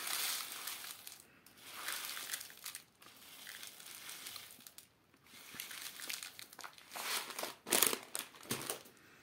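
Hulled oat groats poured from a plastic packet into a plastic tray, running and hissing in a few short pours, with the packet's plastic crinkling. Near the end come several sharper crinkles as the packet is handled.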